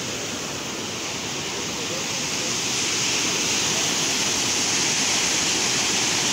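Muddy floodwater rushing and churning in a swollen stream right beside a road, a steady rushing noise that grows louder about two to three seconds in.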